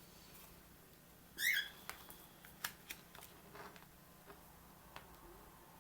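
Tarot cards being handled and laid out on a table: faint scattered clicks and taps, with one brief, louder rustling slide about a second and a half in.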